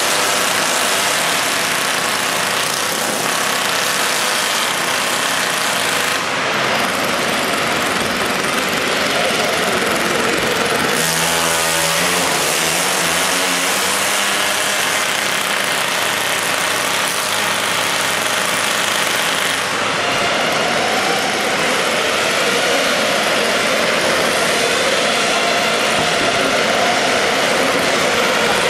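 Small combustion engine of a radio-controlled pulling tractor running loud and steady.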